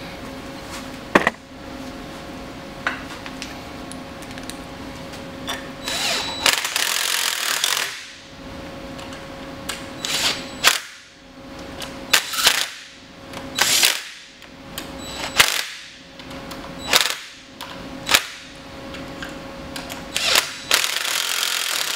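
Cordless drill/driver running countersunk bolts into an aluminium adapter plate: one longer run about six seconds in, then about eight short, sharp bursts a second or two apart as each bolt is snugged down. The lower bolt holes carry Loctite, which makes the bolts noisy and stiff to turn.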